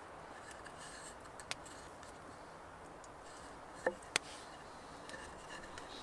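Handling sounds of a hand-carved wooden cup (kuksa) on a log: a few faint clicks, then a short wooden knock and a click about four seconds in as the cup is set down on the wood.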